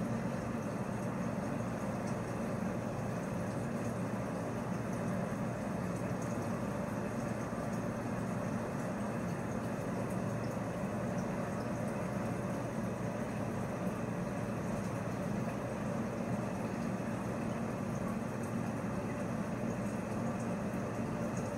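Steady low hum with a constant rushing noise from a reef aquarium's circulation pumps and moving water.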